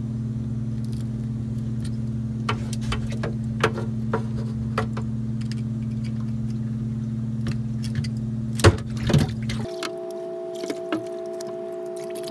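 Small scattered clicks and scrapes of a knife tip picking packed mud out of a bipod leg's joints, with two louder knocks about nine seconds in, over a steady low hum that abruptly gives way to a higher hum about ten seconds in.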